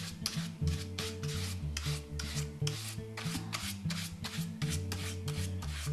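A paintbrush scrubbing acrylic paint onto corrugated cardboard: short scratchy strokes, several a second, over soft background music.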